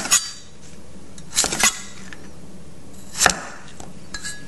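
Chef's knife slicing the skin off fresh ginger, the blade knocking down onto the cutting board in three sharp strokes about a second and a half apart, then a lighter tap near the end.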